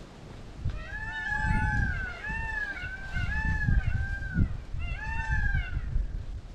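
A run of short honking animal calls, each note rising then falling in pitch, several overlapping at about two or three a second, with a brief pause past the middle. Low rumbling noise runs underneath.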